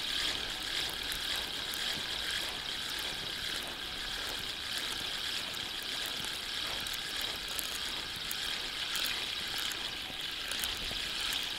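A hooked crucian carp being reeled in to the bank: light water splashing and faint clicks from the reel, over a steady high hiss.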